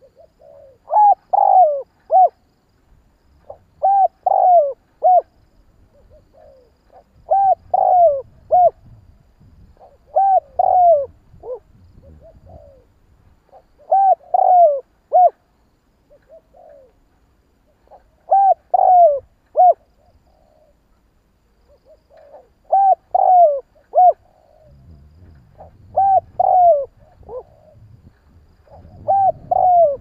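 Spotted dove cooing: a short phrase of rolling coo notes ending in a brief clipped note, repeated about every three to four seconds.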